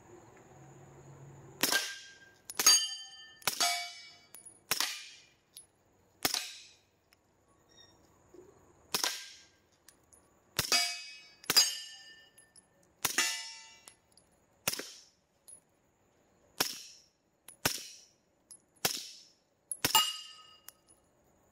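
Suppressed Glock 17 firing subsonic 147-grain 9mm rounds: about sixteen sharp, muffled shots at an uneven pace, starting about two seconds in, with short pauses between groups. Each shot is followed by a brief metallic ring, typical of bullets striking steel targets.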